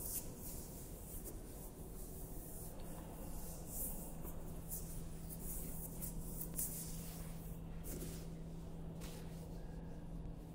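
Steady low hum under a faint hiss, with scattered light rustles and clicks.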